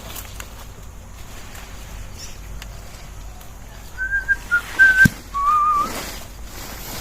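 Whistling: a few short steady whistled notes about four seconds in, then a wavering lower whistle for about half a second, with a sharp click between them.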